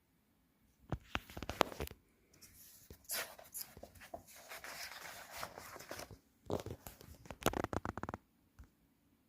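Packaging being handled and torn open: rustling, tearing and sharp clicking handling noises, in a burst about a second in, a longer rustling stretch in the middle, and a run of clicks near the end.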